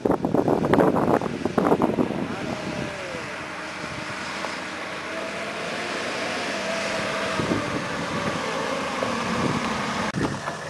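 4x4 SUV engine running at low speed as the vehicle crawls up a snowy off-road track toward the microphone, growing slightly louder as it approaches. Wind buffets the microphone in the first two seconds.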